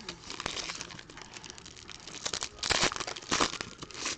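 Wrappers of trading-card packs crinkling and tearing as the packs are opened by hand, with two louder crackly bursts in the second half.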